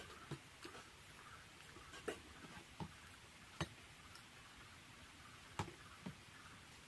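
Quiet eating sounds: a scattered run of about eight soft clicks and smacks from chewing and fingers picking at a plate and bowl, irregularly spaced, the sharpest a little over halfway through and just after.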